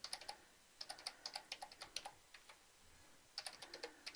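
Computer keyboard being typed on: quick keystrokes in short runs, with a pause of about a second about two-thirds of the way through.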